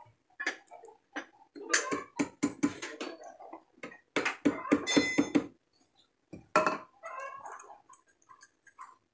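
Metal parts and tools clinking and tapping as a snap ring is fitted to lock a car's steering rack bushing: two quick runs of sharp clicks, the second with a short metallic ring, then a few fainter clicks.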